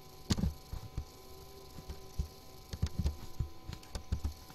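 Computer keyboard keys being pressed, a scattering of separate clicks with a small run of them in the second half, over a steady electrical hum.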